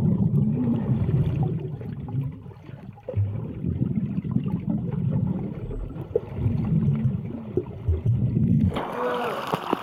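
Swimming-pool water heard through a submerged camera microphone: a muffled, dull rumble and churning of water stirred by swimmers. Near the end the sound suddenly turns brighter and clearer.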